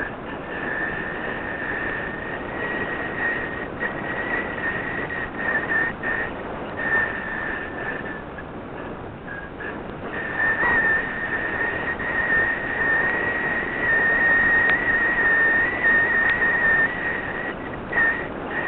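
Air rushing over a small onboard camera's microphone as it descends, with a steady high-pitched whistle through it that drops out briefly now and then.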